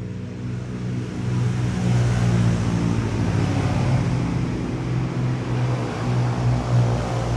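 A motor vehicle's engine running close by, growing louder over the first two seconds and then holding a steady low hum.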